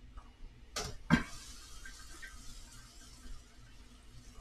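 Water poured faintly into a cooking pot to top up a soupy rice dish, with two short clanks of cookware about a second in.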